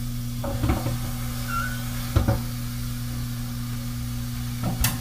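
Chicken breast sizzling softly inside a closed George Foreman contact grill, with a faint even hiss over a steady low hum and a few light knocks, the sharpest near the end.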